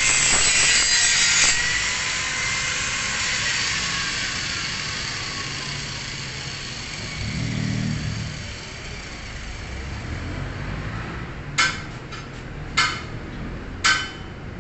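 Angle grinder grinding a bevel on a steel plate, then switched off: the grinding hiss stops about a second and a half in and the motor's whine falls slowly as the disc winds down. Near the end, three sharp metal clanks, about a second apart.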